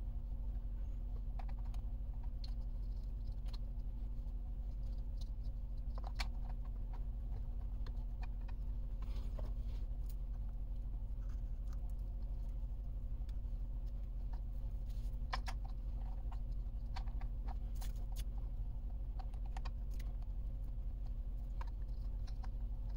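Scattered small clicks and taps of hands handling the wiring, connectors and plastic parts of a radio-controlled truck, with a few louder clicks at irregular moments over a steady low hum.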